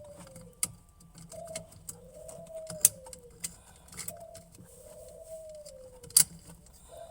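A dove cooing over and over: each call is a short note followed by a longer note that rises and then falls, repeating about every two and a half seconds. Sharp clicks cut in near the start, about three seconds in and about six seconds in; the last two are the loudest sounds.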